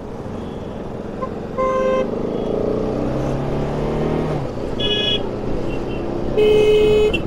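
Vehicle horns tooting three times, briefly about two and five seconds in and longer near the end, over a motorcycle engine running steadily.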